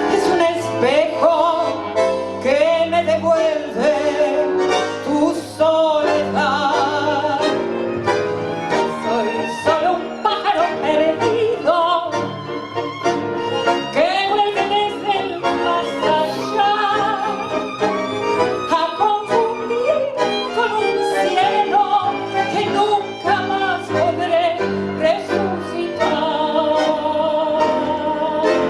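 Tango quartet of violin, bandoneon, double bass and piano playing live, with the violin's sliding melody standing out.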